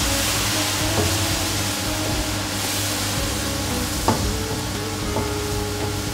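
Chopped onions frying in hot oil with a splash of water, sizzling steadily while being stirred with a wooden spatula, with one light knock of the spatula on the pan about four seconds in.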